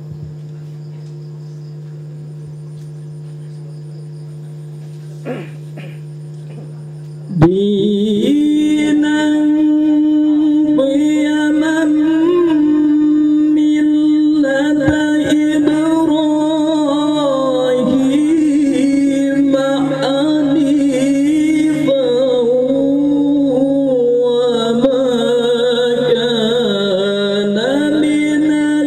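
Quran recitation (tilawah) by a male qori through a PA microphone. For the first seven seconds or so there is only a steady electrical hum from the sound system. Then a loud, long-held, ornamented vocal line begins, slowly turning in pitch and sustaining its notes.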